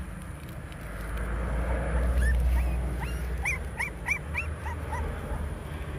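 Puppies whimpering: about seven short, high-pitched rising-and-falling cries, starting about two seconds in and coming in quick succession. The puppies had been abandoned tied in a sack.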